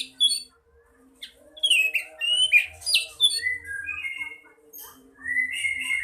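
Pet songbird singing in short phrases of quick chirps and sweeping whistled notes, a bird that has just come back into song.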